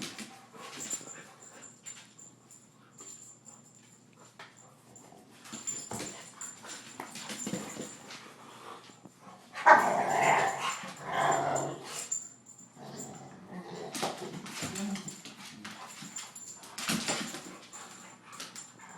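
Pet dogs playing together, making their noises in short, scattered spells, with a louder stretch of about two seconds a little past halfway.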